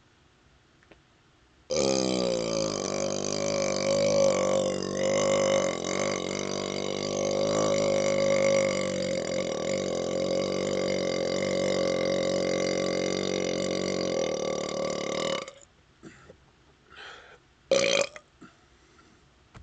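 A man's single long belch after chugging carbonated root beer. It starts suddenly about two seconds in, dips slightly in pitch at first, then holds a steady pitch for about fourteen seconds before cutting off. A short sharp sound follows near the end.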